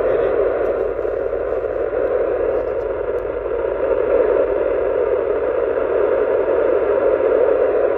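Steady FM static hissing from a mobile two-metre transceiver's speaker, with the receiver tuned to the AO-91 satellite downlink on 145.960 MHz and no voice coming through.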